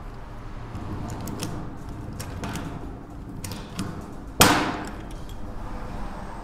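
Hand pop-rivet gun setting a 4 mm rivet through a sheet-metal gutter outlet flange: a few light clicks as the handles are squeezed, then one sharp snap about four and a half seconds in as the rivet's mandrel breaks off.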